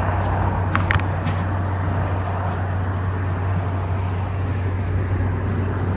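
Steady road traffic noise with a constant low hum, from vehicles crossing the bridge, broken by a couple of sharp clicks about a second in.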